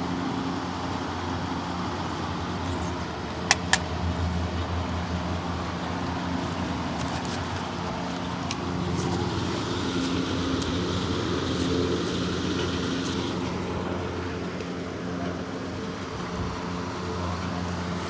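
Small petrol chainsaw engine running steadily at low speed. Two sharp clicks come about three and a half seconds in.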